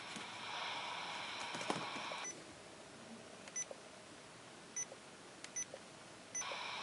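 Radio Shack PRO-89 handheld scanner: static hiss from its speaker for about two seconds, then cut off. A few short, high key beeps follow as its buttons are pressed, and the hiss comes back near the end.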